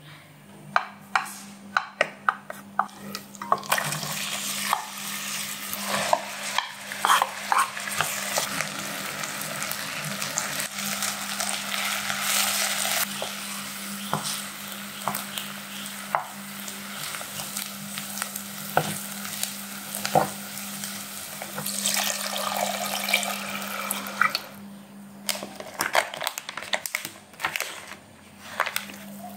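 Sliced onions frying in a saucepan, a steady sizzle with the knocks and scrapes of a wooden spoon stirring them as they caramelise and start to brown. Sharp knocks come before the sizzle sets in. Near the end it gives way to scattered light clicks, all over a low steady hum.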